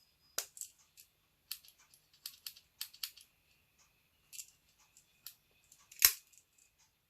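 The small spring-loaded scissors of a Victorinox CyberTool M Swiss Army knife being worked: a string of light metallic clicks and snips, with one louder snap about six seconds in.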